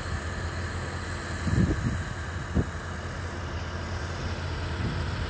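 Diesel engine of heavy earthmoving equipment running steadily with a low hum, with two short thumps, about a second and a half and two and a half seconds in.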